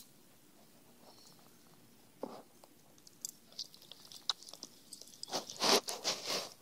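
A dog chewing and nibbling at his itchy skin and fur. Irregular wet clicks and smacks start about two seconds in and build into a louder flurry near the end.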